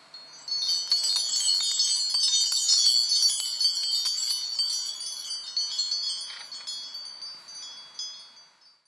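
A shimmering cascade of high tinkling chimes, many bright overlapping notes, starting about half a second in and slowly fading out near the end.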